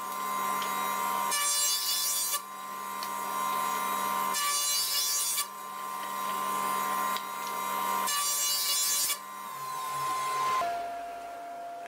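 Electric surface planer running, with three loud bursts of cutting as an old pallet board is fed across the cutterhead. Near the end the motor's tone drops in pitch.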